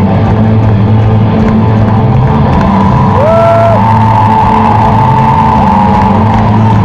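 Live rock band playing loudly over a concert PA, heard from the audience, with a sustained bass line and one note sliding up and holding about three seconds in; the crowd whoops over the music.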